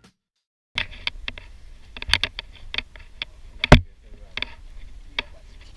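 Irregular sharp clicks and knocks over a low rumble, with one loud thump a little before four seconds in.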